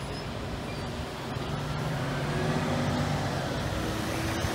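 Waiting road traffic moving off across a railroad grade crossing: a truck engine running and growing louder from about a second in.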